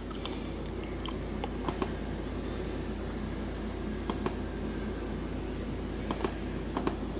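A few short clicks from working the laptop's menus, some in quick pairs, over a steady low hum.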